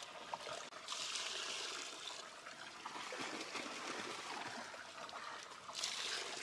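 Water poured in a stream into a large aluminium pot of raw turkey pieces, in two spells: about a second in and again near the end. Between the pours, hands squelch and turn the meat in the liquid.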